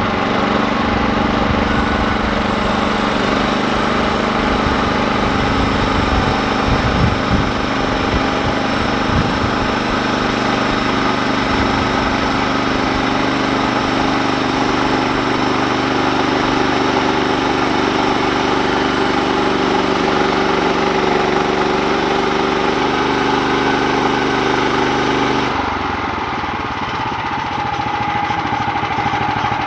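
Engine of a Woodlands HM130 Max portable bandsaw mill running steadily, with the sound changing abruptly near the end.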